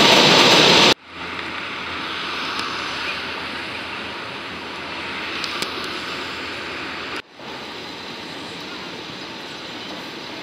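A train passing overhead on a steel elevated structure: a loud rushing roar that cuts off suddenly about a second in. After that, steady city street noise with passing traffic, a little quieter after a second cut about seven seconds in.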